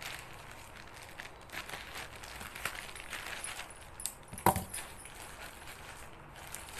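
Plastic courier mailer bag crinkling and rustling as it is handled and cut open with scissors, with scattered small clicks and one sharp, loud scissor snip about four and a half seconds in.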